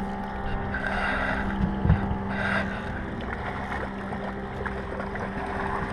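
Small boat's outboard motor idling with a steady hum, wind on the microphone, and two brief rushes of noise about one and two and a half seconds in.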